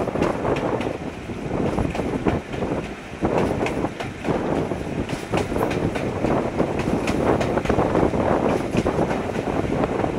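Class 26 diesel locomotive on the move, heard from its cab side window: a continuous rumble of wheels on rail with frequent irregular clicks from the track, and wind rushing past the microphone.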